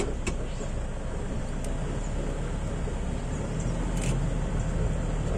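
Safari vehicle's engine running steadily, heard from inside the open vehicle as a low rumble that grows a little louder about three and a half seconds in.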